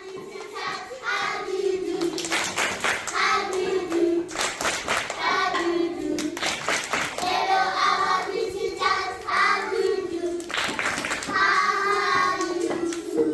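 A group of children singing together, with hands clapping.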